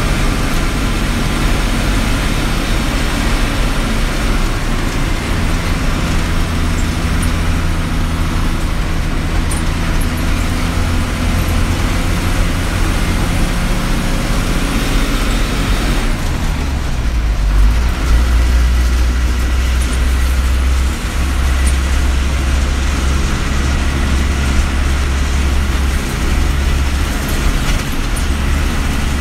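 Bus's diesel engine running under way, heard from inside the cab along with road noise. The engine hum steps down to a lower pitch about halfway through.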